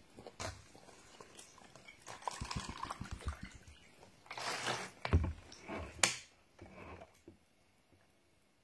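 Water poured from a plastic bottle into a plastic cup about four seconds in, among small clicks and knocks of the bottle and cup being handled, with a sharp knock about six seconds in.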